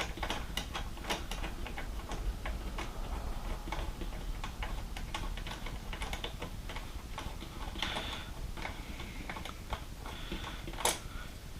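Small irregular metal clicks and ticks from hand-unscrewing a license-plate bolt and its reflector off a motorcycle's plate mount, with a brief scrape about eight seconds in and a sharper click near the end.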